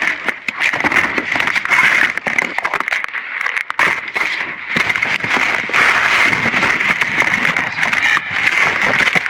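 Debris being dug through and shifted in a dumpster: continuous crackling and rustling with frequent knocks and scrapes.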